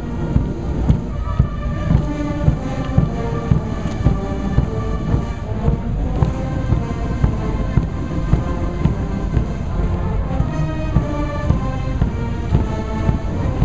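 Marching band playing a march, a melody over a steady bass drum beat of about two beats a second.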